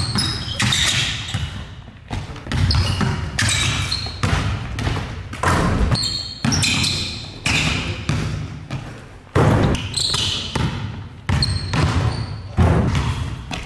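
A basketball being dribbled hard on a gym floor, knocks coming irregularly and echoing in the hall, with short sneaker squeaks.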